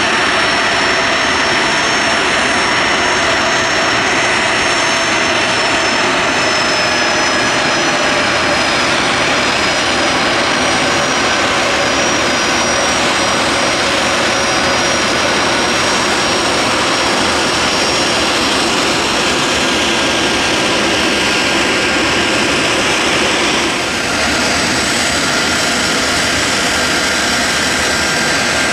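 Boeing 747SP's four Pratt & Whitney JT9D turbofans running at low taxi power as the jet rolls slowly across the ramp. It is a loud, steady jet roar with a high whine on top, and the whine's pitch sinks slightly over the first several seconds.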